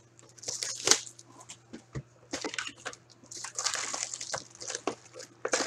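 Crinkling, rustling and tearing of packaging, with scattered clicks and taps, as a Series 1 baseball card hobby box and its packs are opened. A faint steady hum runs underneath.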